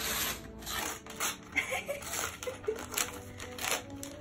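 Wrapping paper being torn and crinkled as a gift-wrapped package is opened, in a run of quick, irregular rips and rustles.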